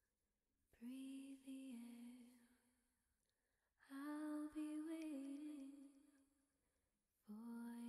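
Quiet, slow background music: three long held notes with a soft, hum-like tone, each fading away, the second and third starting about three seconds after the one before.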